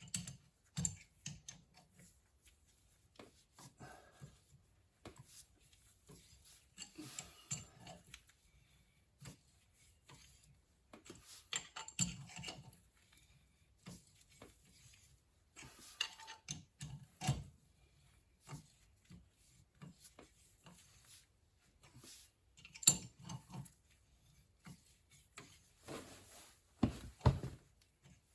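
A thread tap being worked by hand with a crescent wrench, cutting helicoil threads into a stripped bolt hole in cast iron: irregular metal clicks, knocks and scraping, with short pauses as the wrench is repositioned.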